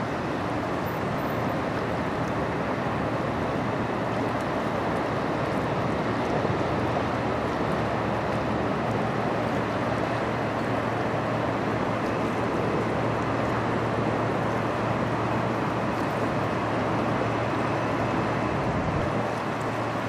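Steady rush of wind on the microphone and flowing river water, under a low, even drone from the passing lake freighter Algoma Buffalo's engines.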